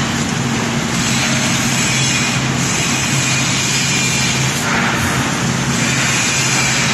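Motor vehicle running steadily: a constant low engine drone under loud, even road and wind noise.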